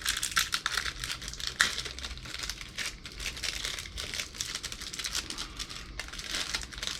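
Plastic packaging crinkling and rustling as it is handled, a dense run of small crackles throughout.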